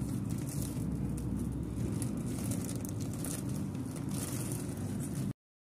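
Steady, muffled hall noise of a large standing crowd, with light rustling over it; it cuts off suddenly near the end.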